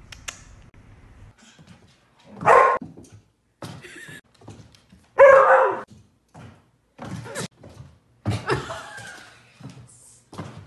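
A dog barking: two loud barks about three seconds apart, then a string of shorter barks mixed with knocks and thumps as it jumps about.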